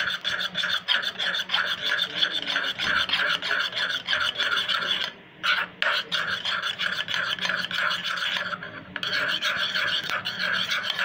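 A spoon stirring and scraping round a bowl in quick rhythmic strokes, mixing a wet conditioner mix; the stirring stops briefly twice, about five and eight and a half seconds in.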